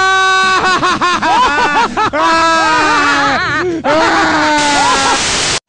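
A cartoon character's long, loud scream of pain, held and wavering in pitch, that cuts off suddenly near the end.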